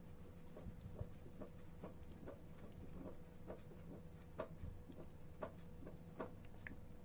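Baby monkey suckling milk from a bottle: soft, rhythmic little clicks, about two or three a second.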